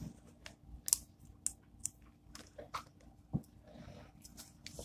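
Sheet of sticker paper handled and bent by small hands, giving faint, irregular paper crinkles and small crackles.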